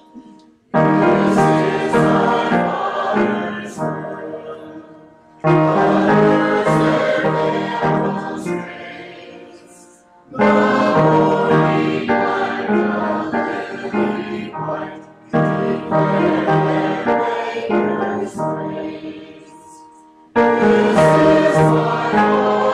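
Choir singing sacred music in slow phrases. Each phrase starts strongly, about every five seconds, and dies away before the next.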